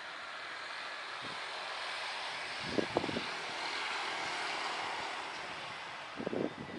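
An airliner's engines passing overhead on take-off: a wide roar that swells to a peak a few seconds in, then fades away. A few short bumps cut through, about three seconds in and again near the end.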